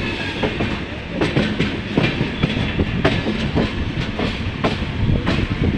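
Railway train running on track: a steady low rumble with the wheels clacking irregularly over rail joints.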